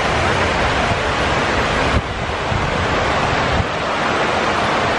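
Steady rush of water from the 9/11 Memorial reflecting pool's waterfalls, a continuous sheet of water pouring down the pool's walls and splashing into the basin.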